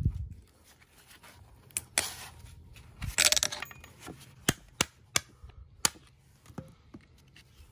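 Steel U-joint retaining clips being pried out of a Dana 30 axle yoke with a screwdriver: a short metallic rattling scrape about three seconds in, then a string of sharp metal clicks and clinks.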